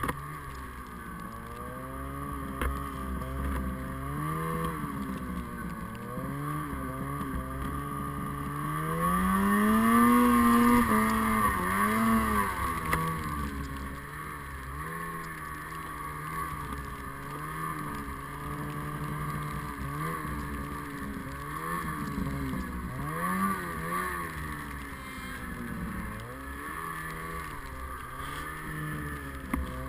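Snowmobile engine revving up and down as the sled pulls through deep powder, its pitch rising and falling again and again. The revs climb highest and loudest about a third of the way in, then drop back.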